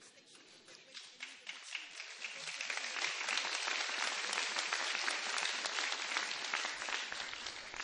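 Audience applause in a hall, swelling to a peak in the middle and dying away near the end.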